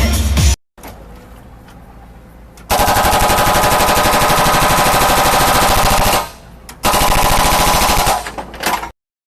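Loud, rapid rattling in two runs: about three and a half seconds, a short break, then about a second and a half more.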